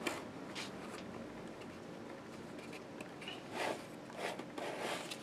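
Faint handling sounds of hands pressing and adjusting a taped, glued MDF book nook kit: soft rustles and light scrapes, with a few short scuffs, most in the second half.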